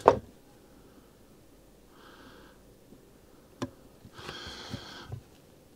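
Quiet hand work fitting a drill bit through the trigger unit of a spring air rifle: a short knock right at the start and a single small click about three and a half seconds in. In between there are two short sniffs.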